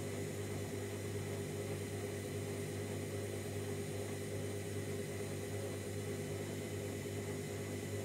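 Candy Grand'O Vita 7kg front-loading washing machine running a 90-degree boil wash: a steady hum and hiss as the drum turns and the water heats, which the owner puts down to the heating element.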